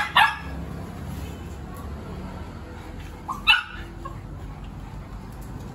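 Dog barking in short, sharp yips: two in quick succession at the start and two more about three and a half seconds in.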